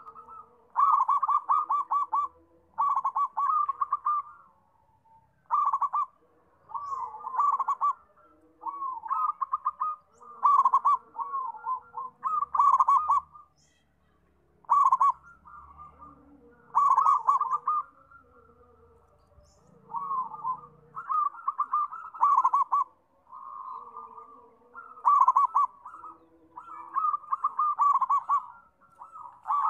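Zebra dove (perkutut) singing its cooing song. It repeats phrases of rapid, stuttering coos, each a second or so long, with short pauses between them.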